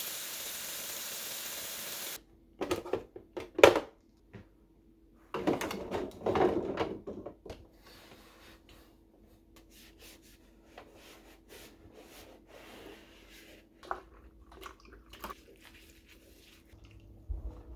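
Water running from a tap, shut off abruptly about two seconds in. Then knocks and clatter of objects being handled, loudest twice early on, with lighter ticks and a faint steady hum after.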